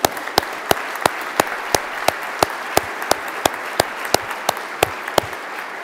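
Audience applauding, with one person clapping close to the microphone in an even beat of about three claps a second. The close claps stop near the end while the rest of the applause carries on and begins to fade.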